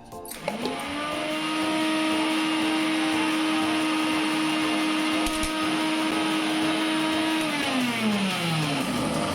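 Electric kitchen blender motor switched on, spinning up to a steady high whine, running for about seven seconds, then switched off and winding down with falling pitch.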